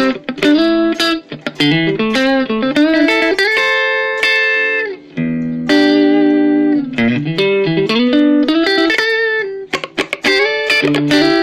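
Mavis MST-600 electric guitar on a clean tone, likely its neck pickup, playing a melodic line of picked single notes, with a few long held notes and some sliding pitches.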